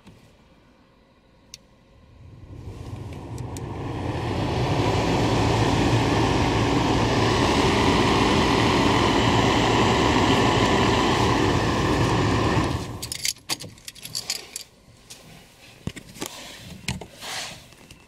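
VW Golf 5 heater blower fan spinning up over about three seconds into a steady rush of air through the dashboard vents, then switched off abruptly about thirteen seconds in, followed by a few light clicks and knocks. The fan is running again, HVAC fuse number 4 having been dealt with.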